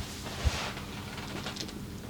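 Hands working over a body in a massage: brushing and rubbing noise with a single low thump about half a second in.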